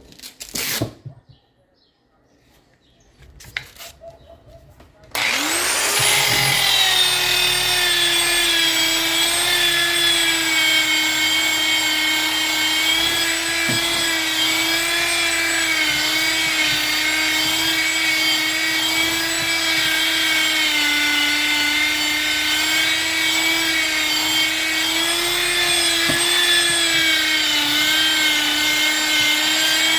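A few light knocks, then a Bosch handheld power tool's electric motor switches on about five seconds in, spins up within a second and runs at a steady high whine, its pitch dipping slightly now and then.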